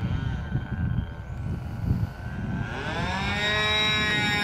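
Glow-fuel engine of a radio-controlled aerobatic model plane flying overhead, a pitched whine that rises about two seconds in and then holds steady, with gusty wind rumble on the microphone in the first half.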